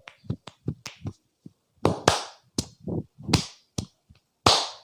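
Hands striking rapidly on a head and neck in a percussive Indian head massage: quick tapping strokes at first, then a few louder, longer slaps.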